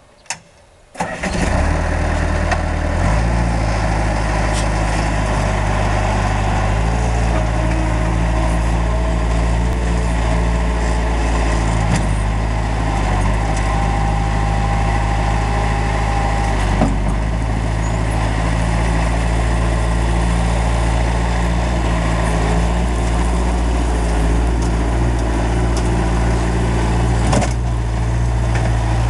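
Bobcat 753 skid-steer loader's diesel engine starting about a second in, then running steadily, its pitch stepping up and down several times as the revs change. At times a thin whine rises over the engine from the hydraulics raising the bucket.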